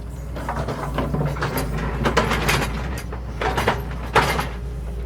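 Excavator engine running with a steady low drone while its bucket knocks and scrapes against rocks several times, the loudest knock about four seconds in.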